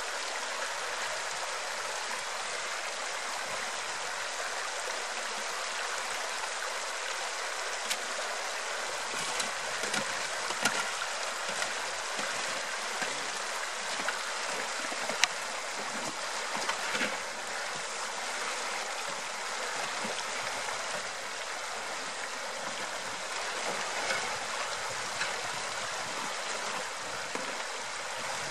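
Shallow river rushing steadily over stones, with a few sharp clinks and scrapes of a shovel working gravel, the loudest about halfway through.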